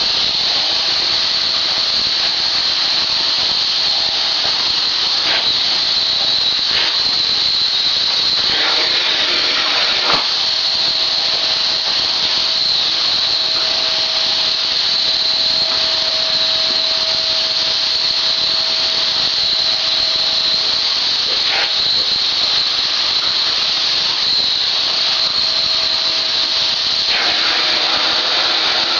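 Vacuum cleaner running steadily with a high-pitched whine, broken by a few short knocks or scrapes.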